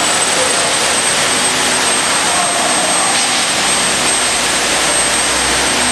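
Vacuum pump of a precast-concrete vacuum lifter running steadily: a loud even hiss with a thin, high whine held over it, and a low rumble swelling near the end.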